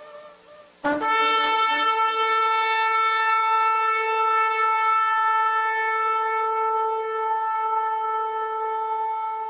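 Shofar (ram's horn) sounding one long, steady blast that starts abruptly about a second in and is held unbroken.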